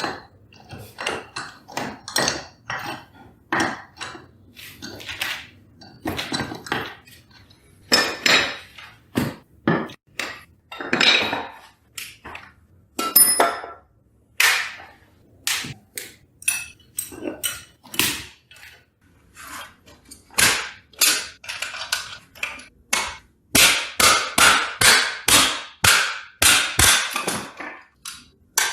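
Mechanic's workshop sounds: irregular knocks and clanks of tools and parts, some briefly ringing. Near the end these give way to a quick run of hammer blows.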